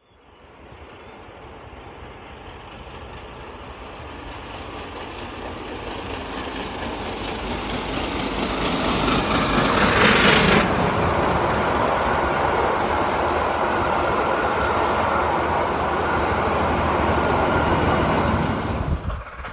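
Steam-hauled passenger train approaching and passing at speed. The noise builds steadily and is loudest as the locomotive goes by about halfway through, followed by the steady rumble and clatter of the coaches passing, which stops abruptly near the end.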